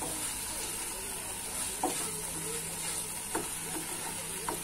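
Black spatula stirring thick mashed-aubergine masala in a nonstick kadai over a low sizzle, with about three sharp taps of the spatula against the pan.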